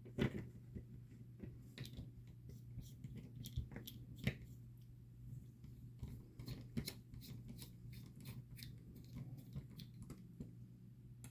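Small scattered clicks, taps and scrapes of fitting a metal beadlock outer ring onto a 1/24-scale RC crawler wheel by hand, over a steady low hum.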